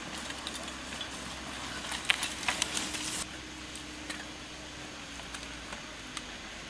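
Mountain bikes rolling past on a dirt trail: a cluster of clicks and rattles from the bikes about two to three seconds in, with a few scattered ticks afterwards over a low steady background.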